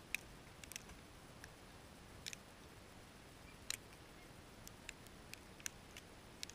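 Faint, irregular ticks of falling sleet pellets striking hard surfaces, a few sharper than the rest, over a steady faint hiss.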